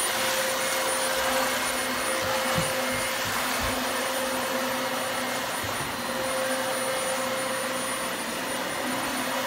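Upright vacuum cleaner running steadily with a constant whine as it is pushed over carpet.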